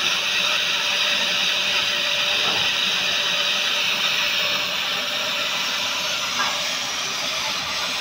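Oxy-fuel cutting torch on a motorised track-cutting machine hissing steadily as its oxygen jet cuts through steel.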